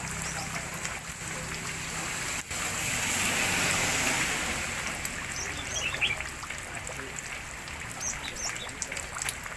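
Water trickling and splashing steadily, swelling for a moment a few seconds in, with short high bird chirps scattered through the second half.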